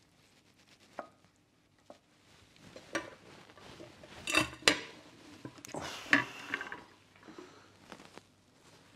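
Serving spoon and cooking pot clinking and knocking against ceramic plates as rice is dished out and the pot is turned out onto a plate. The sharpest knocks come about four and a half seconds in, with another cluster around six seconds.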